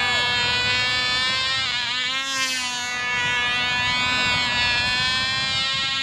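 A tiny Cox glow engine on a control-line Cox Stuka model running at full speed in flight, a steady high-pitched buzz whose tone wavers slightly as the plane circles the pilot.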